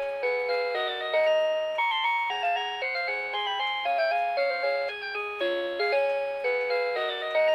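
Rhythm Clock 'Melody Box Eight' melody alarm clock playing one of its built-in classical tunes in several voices. The tone is not a plain electronic beep, and each note starts sharply and dies away quickly.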